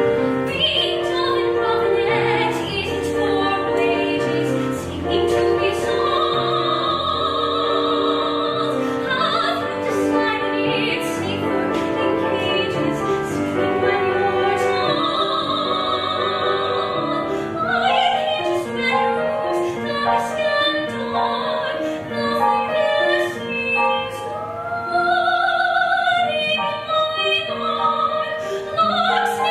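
Classical-style music with operatic singing: long wavering held notes over a steady instrumental accompaniment.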